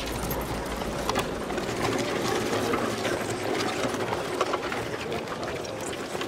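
Wooden hurdle dragged over stony, gravelly ground, rattling and scraping steadily with many small clicks and knocks.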